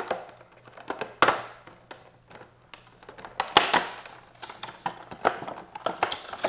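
Stiff clear plastic packaging handled and opened by hand: an uneven run of clicks and crackles, with louder crackles about a second in and again about three and a half seconds in.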